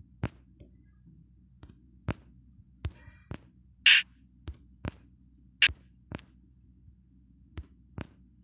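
Scattered light clicks and taps, about a dozen at uneven intervals, with two brighter, slightly hissy ticks about four and five and a half seconds in.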